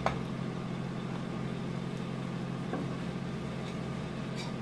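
Eggs cooking in hot oil in a non-stick pot, over a steady low mechanical hum. A wooden spatula knocks against the pot at the start and again near the end.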